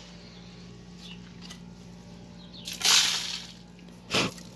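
Handling noise: a loud crackling rustle about three seconds in, then a shorter scrape just after four seconds, over a faint steady hum.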